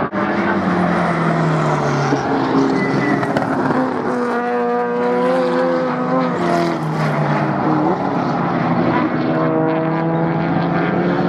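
Several Improved Production race car engines running hard together, their pitches overlapping and sliding up and down with the revs.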